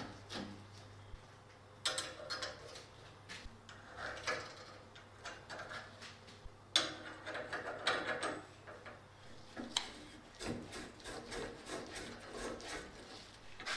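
Quick back-and-forth rubbing or scraping strokes by hand, in several short runs with pauses between them.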